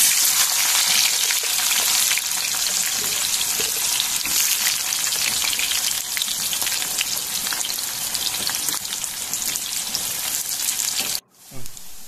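Sliced bitter gourd (karela) deep-frying in hot oil in a wok-like kadai: a loud, steady sizzle with fine crackling. It starts the moment the fresh slices go into the oil and eases slightly as they fry. It cuts off abruptly about a second before the end, then returns quieter.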